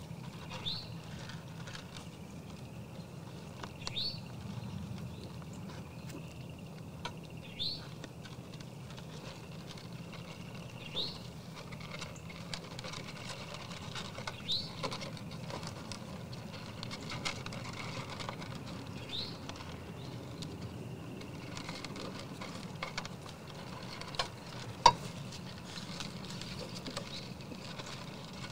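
Whitetail deer crunching and nibbling feed from a tray feeder: a steady run of small crackling clicks. A short rising chirp repeats every three to four seconds through the first two-thirds, and one sharp knock stands out near the end.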